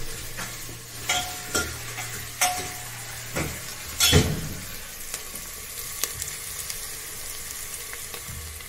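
Chopped onions sizzling steadily in hot oil in a stainless-steel pressure cooker, fried as the tempering (tadka) for dal. A steel ladle stirs them, clinking sharply against the pot about five times in the first four seconds.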